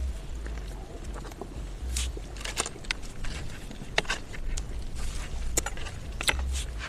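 Wind rumbling on the microphone in uneven gusts, with scattered sharp clicks and knocks from handling or objects being moved.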